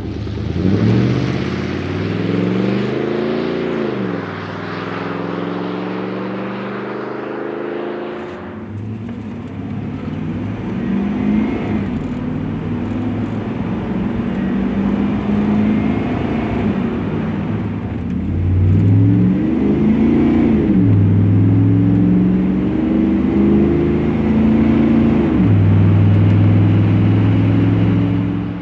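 Exhaust of a 1996–99 Chevrolet/GMC 1500 pickup's 5.7L V8 through a Flowmaster FlowFX cat-back system with a straight-through muffler, revved up and falling back, heard from behind the truck. After a sudden change, the engine is heard from inside the cab under acceleration, first quieter on the stock exhaust, then louder on the FlowFX system. It revs up and down and then holds high near the end.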